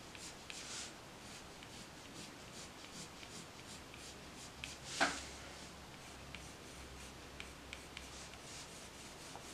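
Prismacolor colored pencil scratching faintly on paper in short, irregular strokes. About halfway through comes one louder scrape.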